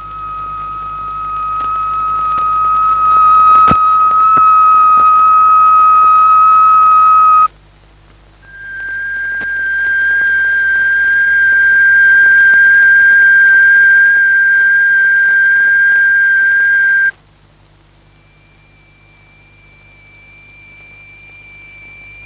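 Steady electronic sine tones from the oscillator that sets a sand-strewn plate vibrating. One high tone swells in and holds for about seven seconds, then cuts off. After a short gap, a slightly higher tone swells in and holds for about nine seconds, then cuts off. A fainter, still higher tone follows. A sharp click comes about four seconds in.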